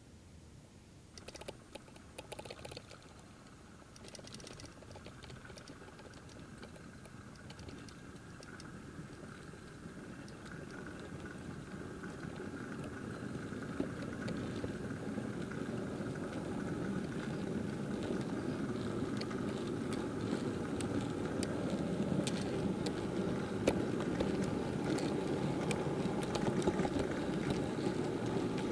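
Model train wagon rolling on track, heard from a camera riding on it: it starts moving about a second in and grows steadily louder as it picks up speed, a rattling rumble with a steady high whine and irregular clicks over the rail joints and points.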